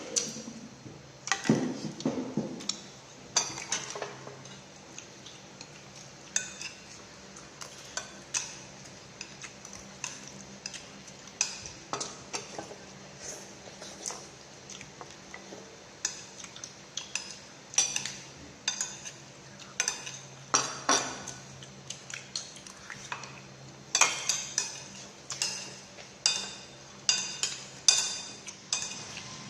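Utensils clinking and knocking against dishes and bowls in irregular sharp strikes, most frequent near the end.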